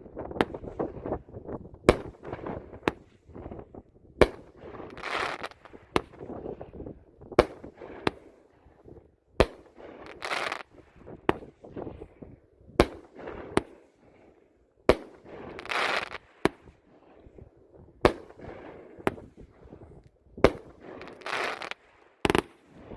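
A 16-shot, 500-gram consumer firework cake firing its shots: sharp reports about once a second, with a long crackling burst about every five seconds from its crackling flower effects.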